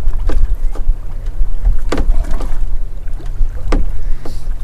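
Wind buffeting the microphone in a small drifting boat: a heavy, uneven low rumble. Three brief, sharper noises come about a second and a half apart.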